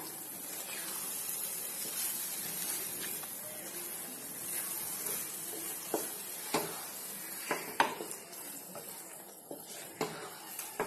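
A spatula stirring thick ground green-chilli pickle paste in a frying pan over low heat, with a steady low sizzle. In the second half the spatula knocks sharply against the pan several times.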